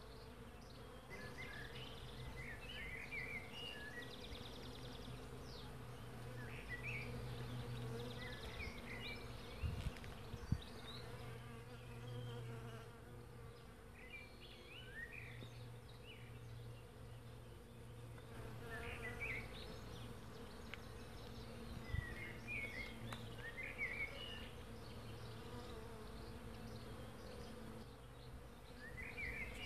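Swarm of honeybees foraging in a flowering maple tree, their wings making a steady, continuous hum. Short high chirps come every few seconds, and two brief knocks sound about ten seconds in.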